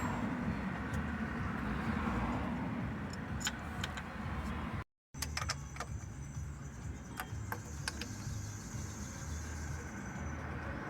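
Metal tools clicking and clinking during work on the van's engine, over a steady low rumble, cut into short clips.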